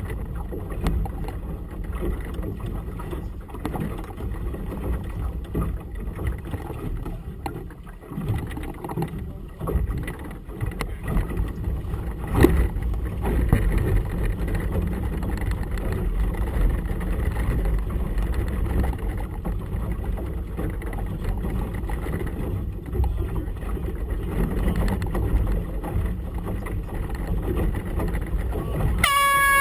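Steady low rumble of wind and choppy water around a small motorboat, with one sharp knock about twelve seconds in. Right at the end an air horn blast starts, a race committee signal.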